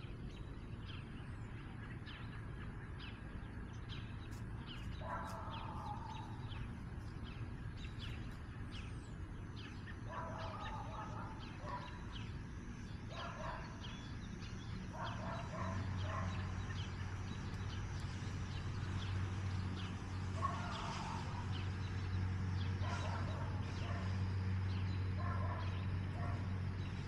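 Outdoor animal calls: small birds chirping throughout, with short bursts of repeated lower calls every few seconds. A low steady hum comes in about halfway through.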